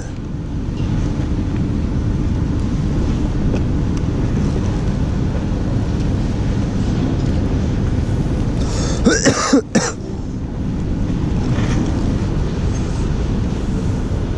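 A man gives a short cough about nine seconds in, over a steady low rumbling noise.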